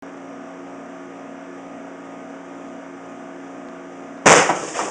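A steady mechanical hum, then one loud shot from a Quackenbush .50 calibre big bore air rifle about four seconds in, dying away over about half a second.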